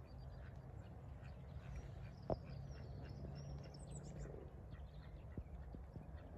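Ducks quacking faintly, with high chirps of small birds between about one and a half and four and a half seconds in, over a steady low rumble; a short sharp thump about two seconds in is the loudest sound.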